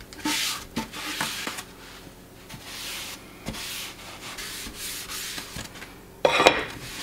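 A sponge rubbing over a black granite composite sink in repeated swishing strokes a little under a second apart, spreading a color-enhancing treatment over the surface. One louder, sharper stroke comes just past six seconds in.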